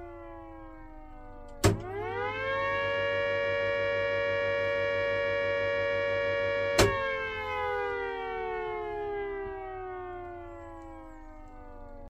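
Small twin-headed electric siren on a siren test run from a GEC air raid siren control panel. It is winding down with falling pitch when a sharp contactor click comes about a second and a half in, and the siren spins up quickly to a steady two-note wail. About five seconds later a second click cuts the supply, and the pitch slowly falls away: the wailer switching the siren on and off.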